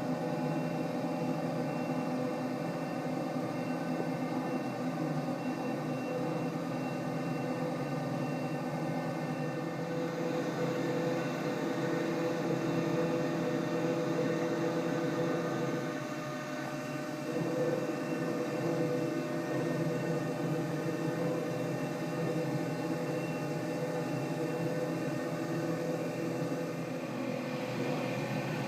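CNC machining centre running while machining, a steady whirring hum with several steady tones over a noisy wash, dipping briefly about halfway through.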